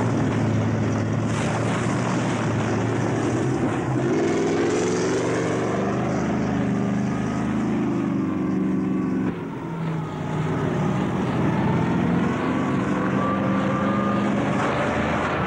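Sound effect of a huge multi-wheeled land train's engine driving over rough ground: a steady heavy engine drone whose pitch shifts about four seconds in and breaks off briefly past the middle, with a faint rising whine in the second half.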